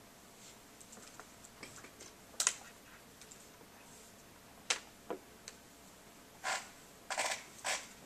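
Laptop keyboard typing: scattered, irregular keystrokes, with a few longer, louder clatters of keys in the last couple of seconds.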